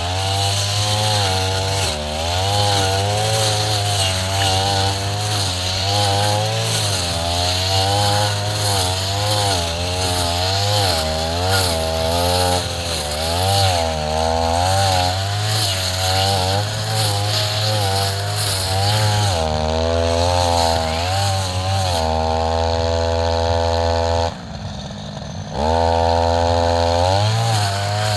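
Two-stroke brush cutter running at high revs, its pitch wavering up and down as the cutter bogs and frees in tall grass. Near the end it holds steady, drops to idle for about a second, then revs back up.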